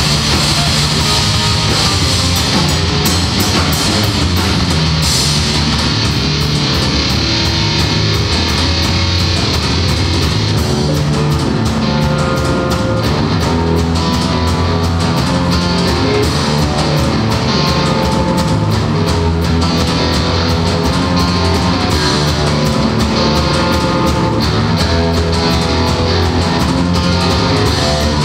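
Live heavy rock band playing loudly: distorted electric guitar and bass over a drum kit, with steady, dense drumming and cymbals throughout.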